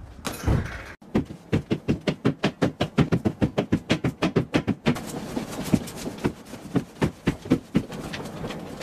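A bentwood lounge chair rocked violently, knocking and thumping rapidly and evenly at about six beats a second. After about five seconds the knocks turn less regular over a steady hiss. A thud of a kick against a punching bag comes before it.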